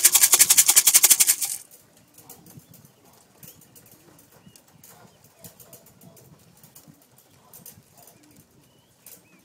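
A can of pigeon feed shaken in a fast, even rattle that stops abruptly about a second and a half in, the usual call to bring racing pigeons down to trap. After it come faint scattered clicks, light wing flutters and a few short high chirps.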